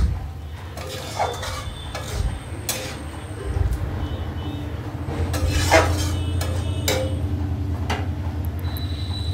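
A spatula stirring and scraping curry in a metal kadhai, with scattered clinks and knocks against the pan, over a low steady hum that grows louder a few seconds in.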